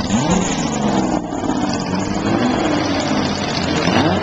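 Engine of a vintage open-cockpit sports racing car accelerating past and away, its pitch rising just after the start and again near the end.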